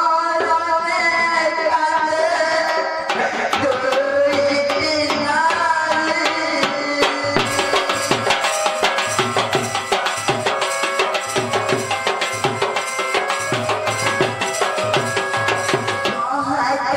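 Odia Danda Nacha folk music: a double-headed barrel drum beaten fast under a wavering melody line. About seven seconds in, the melody drops back and quick dense drumming takes over, until the melody returns near the end.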